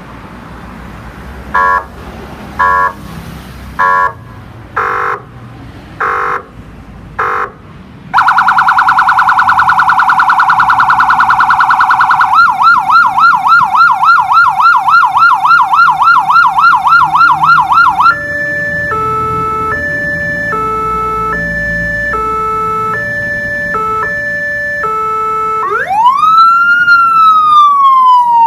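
Electronic emergency-vehicle siren cycling through its tones. It opens with six short horn-like blasts about a second apart, then a very fast warble, then a fast yelp of about three to four sweeps a second. After that comes a stepped hi-lo pattern switching between fixed pitches, and near the end a slow wail that rises and starts to fall.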